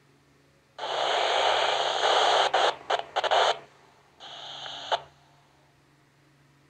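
Yaesu FT-60 handheld receiver on the UHF satcom frequency 255.550 MHz FM, its squelch opening on loud static and hiss that breaks up and cuts off after a few seconds. About a second later a quieter burst of static follows, briefly.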